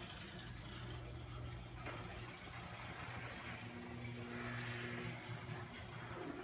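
Chamberlain half-horsepower chain-drive garage door opener running, a steady motor hum as it drives the door open.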